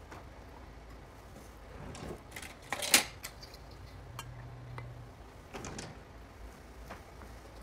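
Metal two-piece lids being set and screwed onto full glass Ball mason jars of milk: a sharp clink about three seconds in, with smaller clicks and scrapes before and after it.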